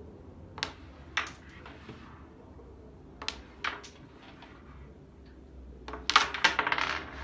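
Carrom striker and wooden carrom men clacking on the board. There are a few single sharp clicks in the first four seconds. About six seconds in comes a quick, loud rattle of clacks as a shot sends the coins knocking together and against the frame.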